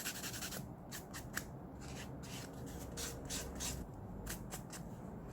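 Quick, faint rubbing strokes of a tool on a fingernail during gel nail work: a fast run of strokes in the first second, then separate short strokes, several a second.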